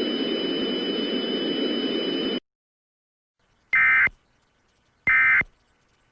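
A steady hiss with a thin high tone over it, cutting off suddenly about two and a half seconds in. After a second of silence come two short warbling data bursts a little over a second apart: the Emergency Alert System end-of-message tones that close an alert.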